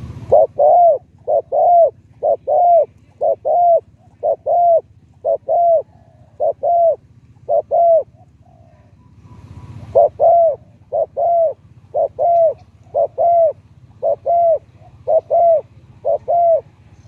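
Spotted dove cooing in two long phrases of repeated, evenly spaced coo notes, with a pause of about two seconds between them. A low steady hum lies underneath.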